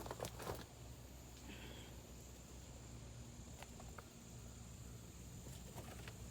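Quiet outdoor background with a steady low hum, a few soft footstep crunches at the very start, and a brief faint high chirp about a second and a half in.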